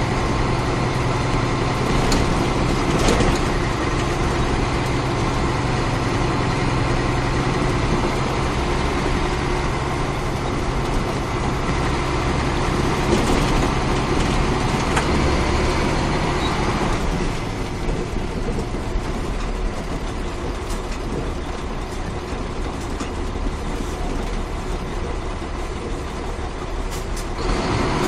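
Caterpillar 3406 inline-six diesel in a 1994 Ford L9000 truck running as the truck drives along. It gets somewhat quieter about two-thirds of the way through.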